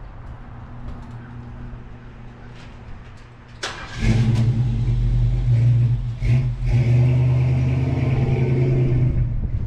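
A car engine starts up about four seconds in and runs at a steady idle, loud and even, easing slightly near the end.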